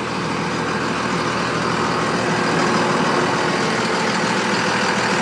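A 2001 Dodge Ram 2500's Cummins 24-valve high-output 5.9-litre inline-six turbo diesel idling steadily.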